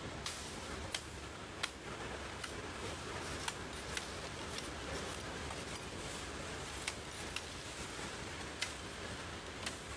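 Short, sharp clicks at irregular intervals, about ten in all, over a steady hiss.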